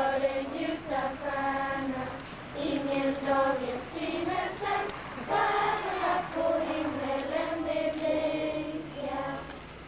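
A choir of children singing a Lucia song together, in long held notes with short breaks between phrases.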